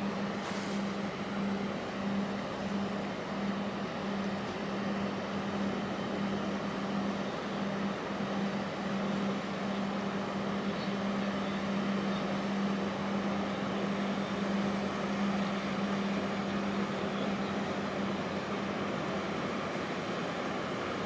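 Steady drone of the large container ship YM Success passing close by: a constant low hum over a broad, even rush of machinery and water noise.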